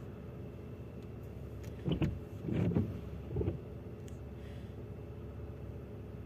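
Road traffic: a steady low hum of vehicles, with a louder engine sound swelling up three times close by, about two to three and a half seconds in.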